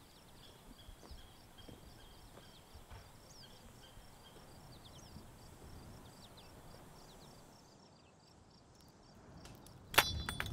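Quiet rural outdoor ambience: a faint high chirping repeating at an even pace, short bird calls and soft footsteps on a dirt track. Near the end a sudden loud bang with a ringing tail.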